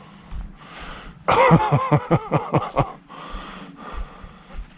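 A man's breathy laugh: a quick run of short "ha" pulses starting about a second in and lasting about a second and a half.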